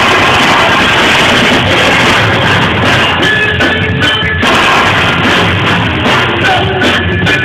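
Live rock band playing loud: drum kit and electric guitars, recorded on a mobile phone.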